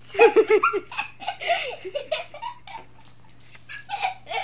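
Laughter: a loud run of quick laughs in the first second, then softer, scattered laughs and giggles.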